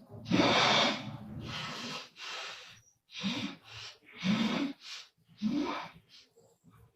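A sleeping woman snoring: a long, loud snore starting about a third of a second in, then a run of shorter noisy breaths about one a second, some with a low buzz.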